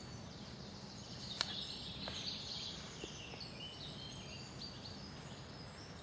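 Woodland birds singing, many short chirping notes, with one sharp click about one and a half seconds in.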